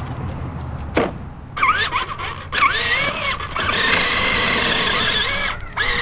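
Small electric motor of a toy truck whining, its pitch wavering up and down and then running steadier from about four seconds in, with a single click about a second in.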